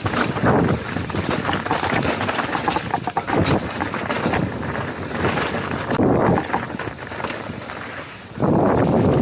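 Mountain bike ridden fast over a dirt trail: wind buffets the microphone, and the tyres and frame rattle and clatter over the uneven ground. The wind noise gets suddenly louder near the end.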